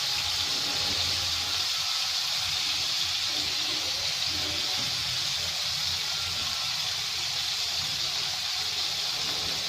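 Fish frying in hot coconut oil in a pan: a steady, even sizzle.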